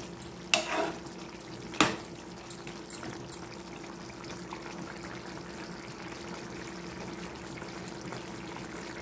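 A metal spoon stirring a simmering curry in an aluminium kadai, knocking against the pan twice in the first two seconds, the second knock the loudest. After that the curry simmers gently with a steady faint hiss and a thin steady hum.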